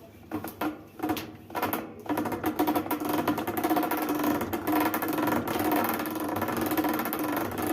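Washing machine tub shaking on its suspension rods, the rods squeaking and scraping: a few separate creaks at first, then a continuous rhythmic squeaking grind from about two seconds in. The sign of the rods binding, possibly their plastic seats scraping against scale or rust on their counterparts.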